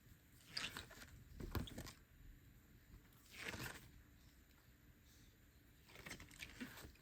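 Photo book pages being turned: several soft paper swishes and rustles, with a longer pause before the last one.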